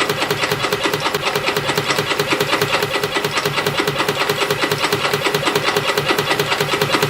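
CNC spring coiling machine running, feeding 0.4 mm wire and coiling conical compression springs: a rapid, even clicking rhythm over a steady machine hum.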